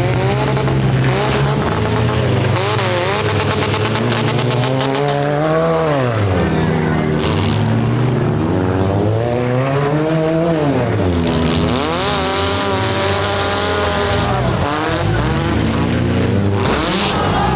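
Demolition derby cars' engines revving hard, their pitch rising and falling again and again, with sharp bangs of cars colliding about four to seven seconds in.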